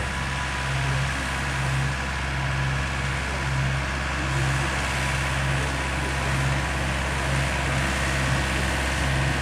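Tractor engine running steadily as the tractor works a field with a rear-mounted rotary tiller, a low hum that pulses about twice a second, with a faint steady whine above it.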